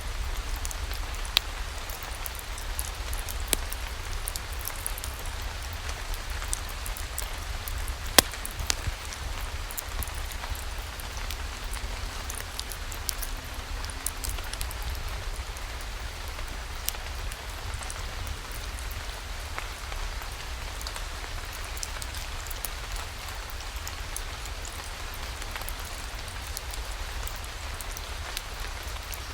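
Steady rain falling, with scattered sharp clicks and pops through it, the loudest one about eight seconds in.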